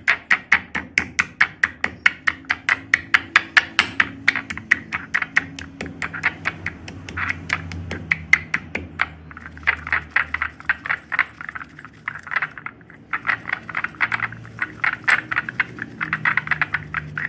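Dry chalk being crushed and mixed: quick, even crunching strokes, about five a second, with two short breaks about nine and thirteen seconds in.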